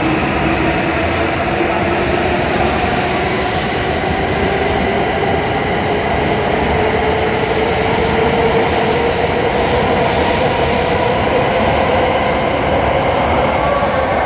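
E7 series Shinkansen pulling out of the station and accelerating, its traction motors' whine rising slowly in pitch over the steady noise of the cars rolling past.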